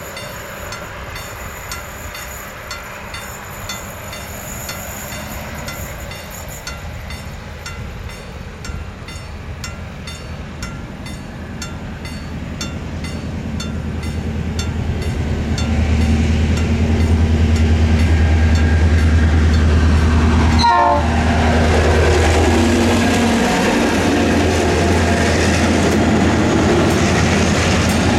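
EMD G26C two-stroke diesel locomotive approaching and passing with a chemical freight train: its engine drone builds steadily, is loudest a little past the middle, and drops in pitch as it goes by. It is followed by the rolling rumble and clatter of the tank wagons.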